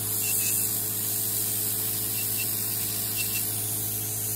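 Podiatry nail drill with a built-in water-and-alcohol spray, running steadily as its burr files a thick toenail: an even motor hum under the steady hiss of the spray mist.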